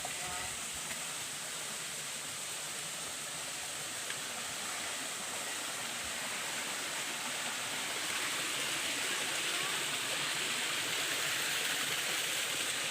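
Rushing water of a rocky stream near a waterfall: a steady hiss that grows a little louder about two-thirds of the way through.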